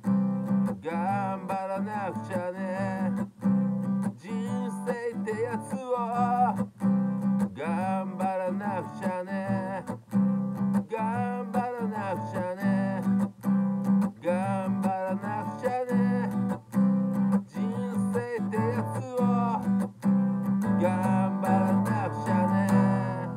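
A man singing over a strummed acoustic guitar, the chords kept going in an even rhythm throughout.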